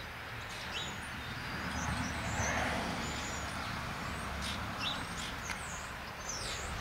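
Outdoor farmyard ambience: a steady low wind rumble that swells about two to three seconds in, with small birds chirping now and then, more often near the end.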